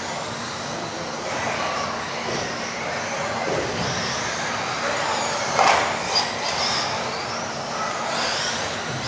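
Electric RC off-road buggies racing on an indoor track, their motors whining up and down as they accelerate and brake, echoing in the hall. A single louder impact about five and a half seconds in.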